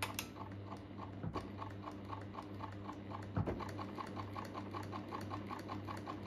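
Pfaff 1229 sewing machine running steadily, freshly oiled: a fast even ticking of the needle mechanism, about five or six a second, over a steady motor hum, with one louder knock about three and a half seconds in.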